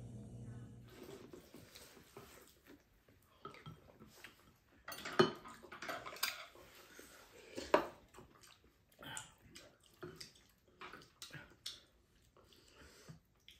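Spoons and chopsticks clinking and scraping against ceramic bowls as two people eat curry and rice. The clinks come irregularly, and the sharpest come about five seconds in and again just before eight seconds.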